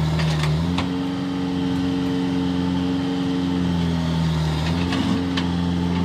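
Diesel engine of a JCB backhoe loader running under working load, its pitch dropping and picking up again a couple of times. A few sharp knocks sound near the start and again near the end.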